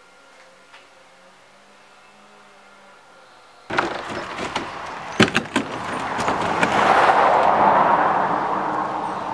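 Faint room tone, then after a few seconds sharp knocks and clatter as a plastic kayak is handled against the car, under a rushing noise that swells and then eases off.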